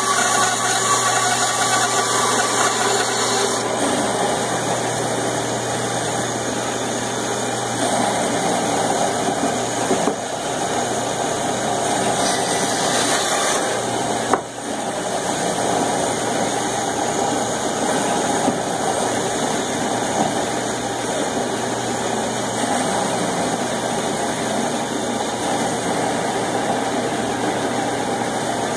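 Band saw running steadily with a low hum, its blade cutting notches into a wooden table leg at times. A short click about halfway through.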